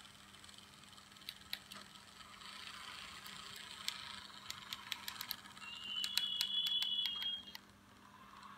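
Märklin AE6/6 model locomotive running on track with sounds from a sound decoder meant for an ET420 electric multiple unit, so the sounds do not match the locomotive. A hiss and scattered sharp clicks, then a high steady tone for about two seconds that cuts off suddenly.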